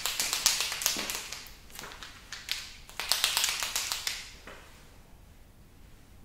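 Quick rattling clicks from a liquid chalk marker being shaken, in two spells: one of about two seconds at the start and a shorter one about three seconds in.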